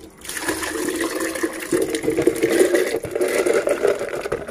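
Soaked, peeled pinto beans and water poured from a plastic bowl into a blender jar: a steady splashing rush, dotted with small clicks of beans striking the jar, starting about a quarter second in.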